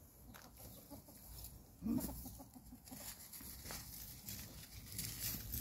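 Ferret digging and scrabbling in dry leaves and bark mulch: scattered scratchy rustles, with one louder short low-pitched sound about two seconds in.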